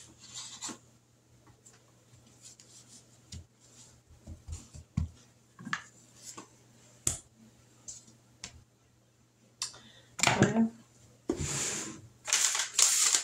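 Hands working on a kitchen countertop: light taps and clicks as canned biscuit dough rounds are pulled apart and set down and a plastic rolling pin is picked up, with louder rustling near the end.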